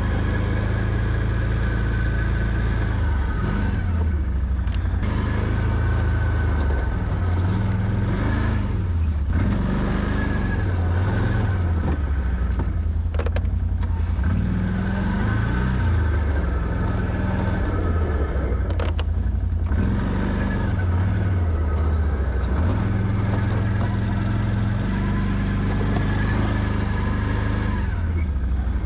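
Can-Am Outlander 650 ATV's V-twin engine running while plowing snow, its pitch rising and falling over and over as the throttle is worked.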